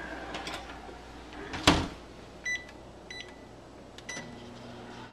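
Viking built-in microwave drawer: the drawer shuts with a single thud, the keypad beeps twice as the time is set, and about four seconds in the oven starts up with a steady hum.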